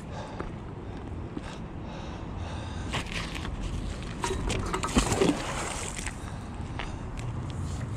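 Wind rumbling on the microphone, with a few sharp knocks and a louder sudden splash-like noise about midway, around when the magnet on its rope goes into the canal water.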